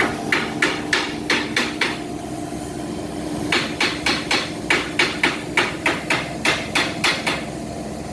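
Steady hum of a Topre TPD-3C refrigerated air dryer's compressor running, overlaid by runs of sharp, evenly spaced knocks, about three a second: a short run at the start and a longer run from about three and a half seconds in.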